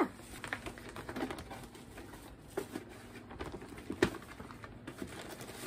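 Light rustling and scattered small taps of a cardboard gift box being handled and opened, with a sharper tap about four seconds in.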